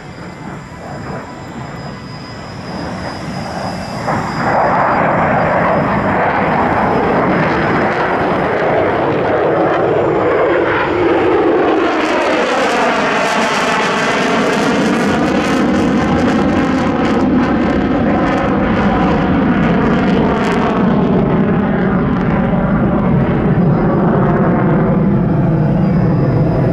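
Mitsubishi F-2 fighter's single F110 turbofan jet engine running loud as the jet passes overhead. The noise swells about four seconds in and carries a sweeping, phasing tone through the middle of the pass, then continues with the afterburner lit as it climbs away near the end.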